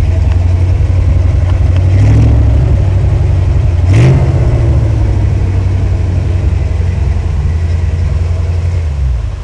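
Lifted GMC 4x4 pickup's engine running under load as the truck crawls uphill, with a short rev about four seconds in. The engine cuts off near the end as the truck is parked and shut down.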